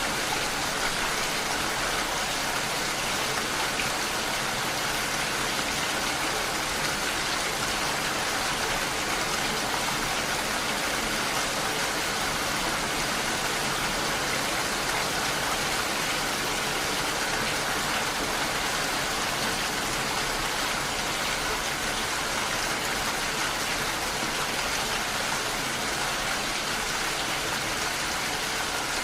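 Steady rain striking a window, an even, unbroken hiss with no pitched sound.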